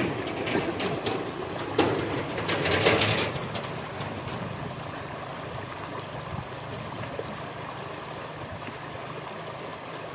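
Shallow river rapids rushing steadily over rocks, with a louder stretch of mixed noise in the first three seconds.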